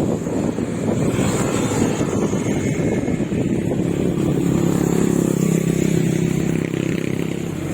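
Road traffic passing close. One engine's steady drone comes up strongly in the second half.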